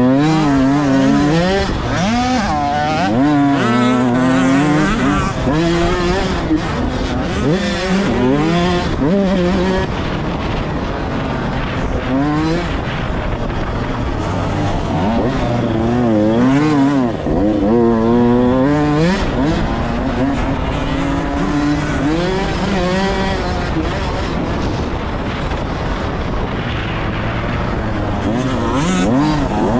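Motocross dirt bike engine revving hard and easing off over and over as the throttle opens and closes through the track's jumps and ruts, heard loud and close from the bike itself.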